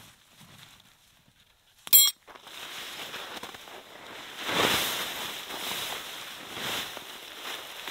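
Tent fabric being gathered up and shaken, rustling and flapping in loud swells. It is preceded about two seconds in by one short, sharp clink.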